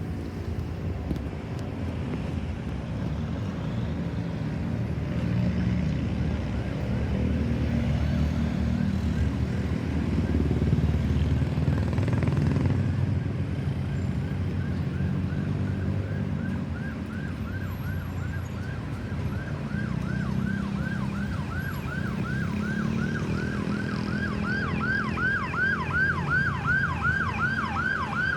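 Road traffic running by, then from about halfway an ambulance's electronic siren in a fast yelp, quick rising sweeps repeated several times a second, growing louder as it approaches.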